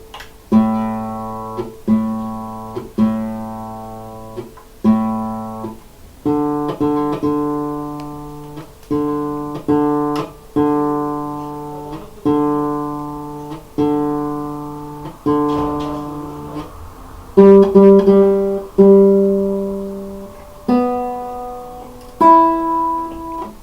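Guitar being tuned: a chord strummed and left to ring, repeated about five times at roughly one-second intervals, then a run of other strummed chords and a few single plucked notes near the end. The strings have gone out of tune with changes in temperature.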